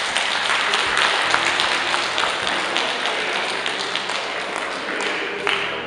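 A crowd clapping, a dense patter of many hands that thins out near the end.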